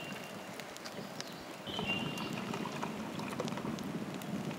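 Wood campfire crackling with scattered sharp pops, and a thin, steady high whistle about two seconds in.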